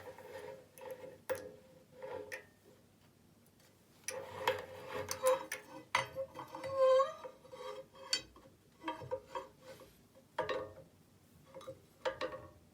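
Metal parts and tools being handled: irregular clinks and rattles with short metallic ringing, busiest from about four seconds in.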